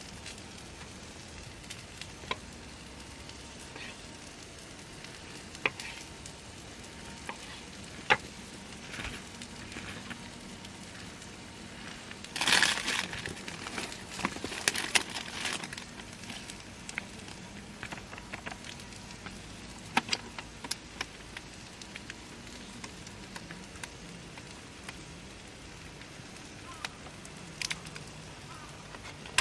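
Food sizzling in a hot pan, with scattered clicks and crackles; about twelve seconds in the sizzling grows louder for a few seconds, then settles back.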